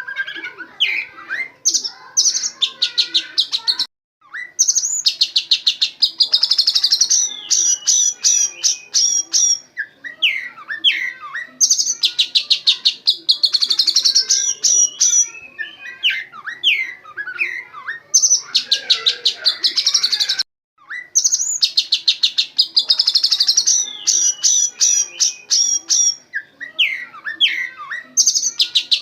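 Oriental magpie-robin (kacer) singing loudly, its song packed with fast, rapid-fire trills of sharp notes, mimicked white-rumped shama phrases, between short swooping whistles. The same phrases recur over and over, breaking off briefly twice.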